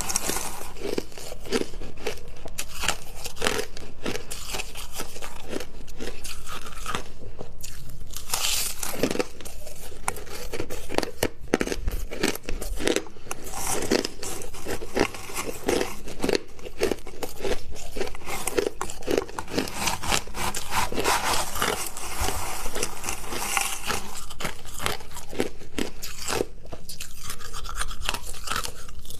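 Hard crushed ice being chewed close to the microphone: a continuous run of crisp crunches, several a second.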